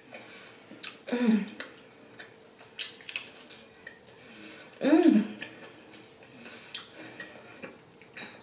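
Close-miked chewing and wet mouth sounds of eating a crispy-skinned garlic parmesan chicken wing, small crunches and clicks throughout. Two short hummed "mm" sounds of approval, about a second in and about five seconds in.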